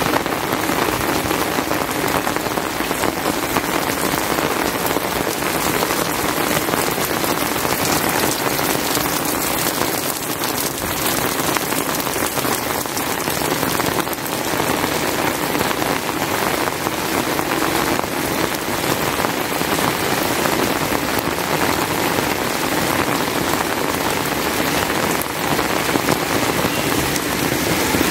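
Heavy rain falling steadily, a dense even hiss with the taps of individual drops landing close by.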